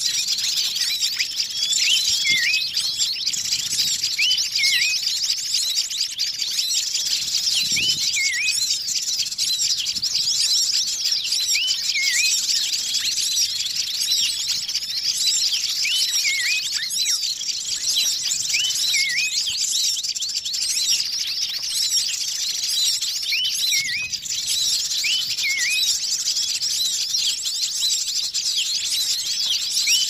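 A dense chorus of many small songbirds chirping and twittering together without a break, with a short hooked whistle call, often paired, standing out every few seconds. It is a bird-lure (pikat) track mixing the calls of many kinds of small birds.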